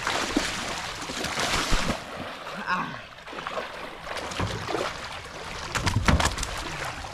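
Water splashing and sloshing, with a few knocks against a boat hull near the end.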